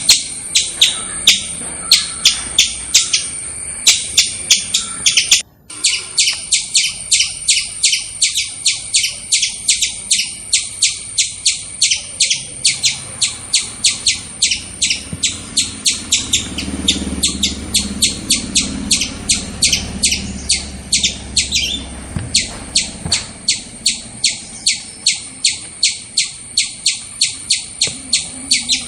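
Squirrel calling, a long run of sharp, high chirps repeated rapidly at about three a second, with a brief break about five and a half seconds in.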